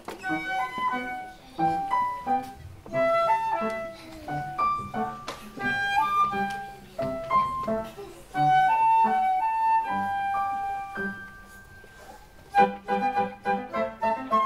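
Flute and piano duet: a flute plays a melody over piano accompaniment. Near the middle the music settles on a long held flute note and grows quieter, then quick rhythmic notes start near the end.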